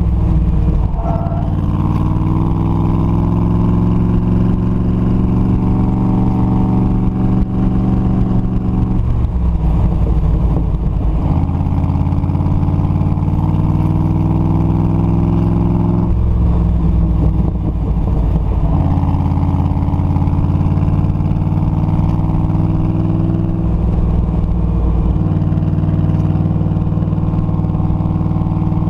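Factory Five Cobra replica's V8 engine driven hard: its pitch climbs for several seconds and then drops back sharply, three times, as the car accelerates and then lifts or shifts.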